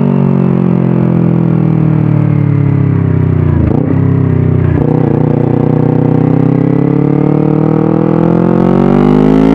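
Kawasaki Ninja 250 parallel-twin engine breathing through a 3Tech Tridente F22 aftermarket silencer and stainless DX Generation header. The engine note falls for about four seconds, dips briefly twice around four and five seconds in, then climbs steadily as the revs build.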